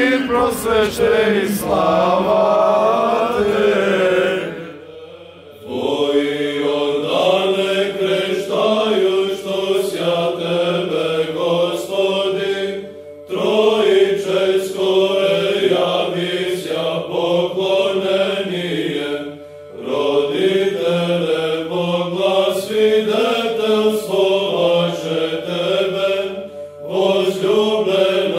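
Orthodox church chant: voices singing a slow liturgical hymn in long phrases, broken by short pauses.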